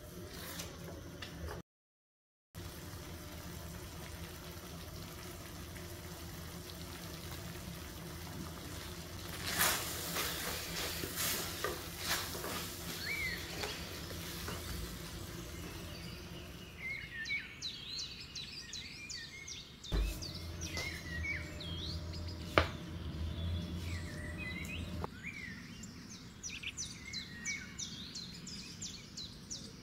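A spatula stirring and scraping a thick, creamy chicken filling as it cooks in a non-stick frying pan, with a few knocks against the pan. From about halfway on, small birds chirp again and again, with a thump and a sharp click among them.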